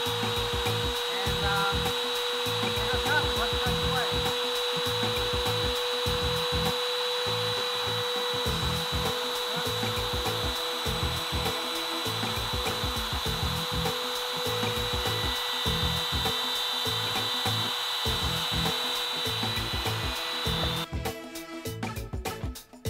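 Compact trim router spinning at full speed as the spindle of a homemade CNC router, a steady high whine with rougher noise underneath as the bit cuts into a hardwood block. The whine cuts off about 21 seconds in and music takes over.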